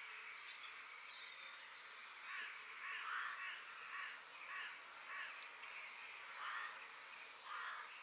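Forest bird ambience: a steady background hiss with high chirps, and from about two seconds in a series of short, harsh bird calls repeating every half second to a second.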